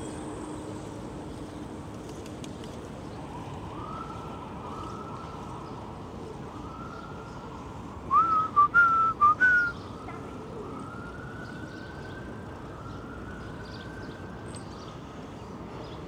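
A distant emergency-vehicle siren wailing in slow, repeated rising sweeps over steady outdoor noise. Around the middle comes a loud run of five or six short whistle-like notes.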